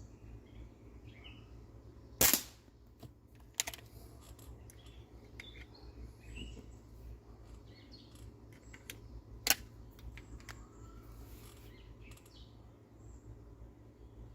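Two sharp shots from a CO2-powered break-open airsoft pistol, about two seconds in and again about seven seconds later, with a lighter click a second and a half after the first. Faint bird chirps in the background.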